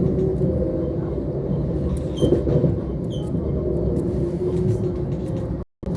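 Steady rumble of a Lastochka electric train running along the line, heard from inside the carriage, with a couple of short knocks a little after two and three seconds in. The sound cuts out for a split second near the end.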